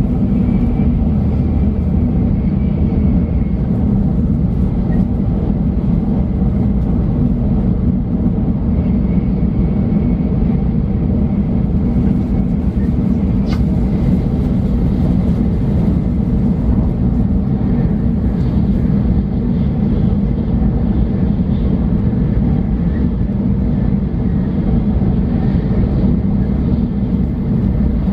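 Shinkansen bullet train running at speed, heard from inside the passenger cabin as a steady, loud low rumble. A single brief click about halfway through.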